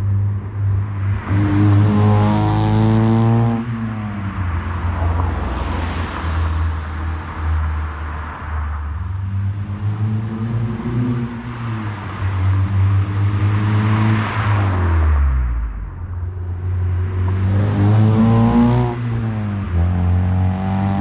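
Acura TSX with a Yonaka catback exhaust and PLM header accelerating past several times, its exhaust note rising and falling with each pass over a steady low drone. The hardest pull comes near the end, where the exhaust has the buzzy drone the owner complains of between 3,000 and 4,000 rpm under heavy load.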